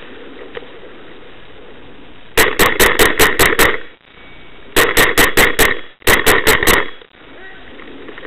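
Brass Eagle Stingray paintball marker firing three quick strings of shots, about six a second, with short pauses between.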